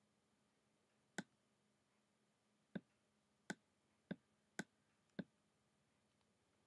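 Six short, sharp clicks, irregularly spaced, from the pen or pointing device used to handwrite on a computer screen, over near silence.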